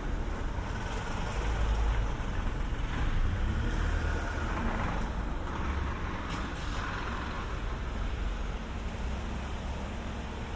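Street ambience dominated by the rumble of motor vehicles on nearby roads, rising and fading several times as vehicles pass.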